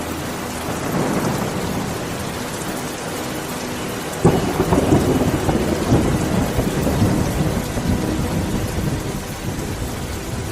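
Heavy rain falling steadily, with a rumble of thunder that breaks in suddenly about four seconds in and slowly fades.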